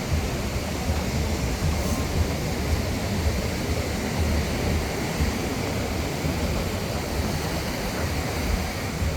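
Wind buffeting the microphone in an uneven low rumble, over a steady rush of surf.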